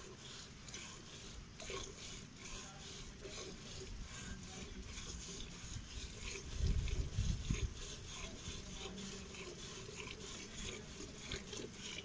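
Hand milking: jets of milk squirting rhythmically into a steel pail. A brief low rumble about halfway through.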